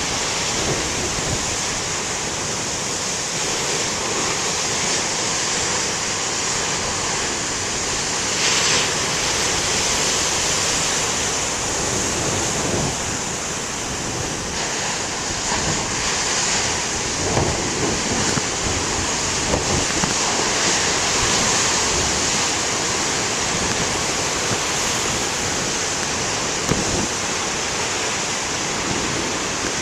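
Heavy ocean surf: big waves breaking and rushing in a continuous roar, swelling louder now and then.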